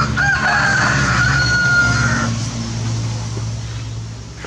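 A rooster crowing once: a long held call of about two seconds. Underneath it runs a low, steady engine hum.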